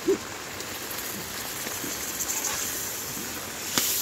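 Steady hiss of rain mixed with tomatoes sizzling in oil in an aluminium pot over a wood fire. A single sharp metallic clink near the end as the iron ladle knocks against the pot while stirring.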